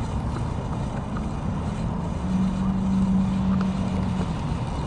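Steady engine noise with a rushing background. A steady hum rises out of it about two seconds in and holds for about two seconds.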